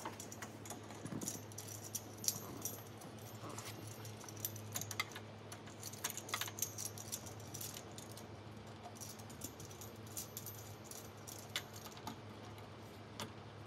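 Metal microphone boom arm and its desk clamp being handled and fitted to a desk edge: scattered light clicks, knocks and small metallic rattles.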